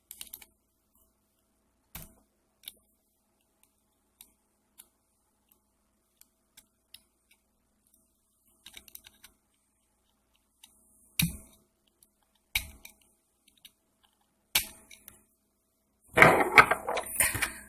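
Small metal tool clicking and scraping against a padlock's cylinder while prying off its retaining C-clip: scattered light clicks, a few sharper clicks toward the end, then a denser stretch of scraping and rattling near the end.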